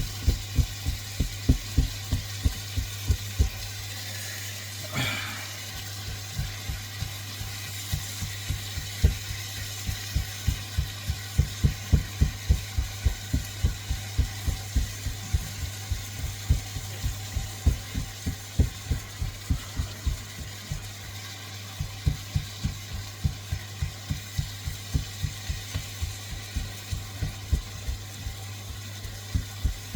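Steady run of short low thuds, about two to three a second, over a constant low hum; the thuds thin out briefly around four to eight seconds in.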